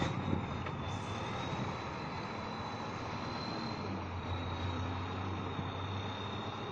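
Tatra six-wheel-drive trial truck's diesel engine running hard as the truck pulls away across mud, a steady low engine note with a thin high whine over it; it is loudest right at the start, as it puffs black smoke under load.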